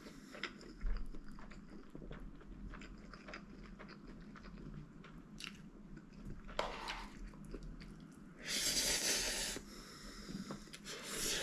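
A person eating instant spaghetti noodles close to the microphone: soft chewing and small mouth clicks, with a louder rush of noise about eight and a half seconds in.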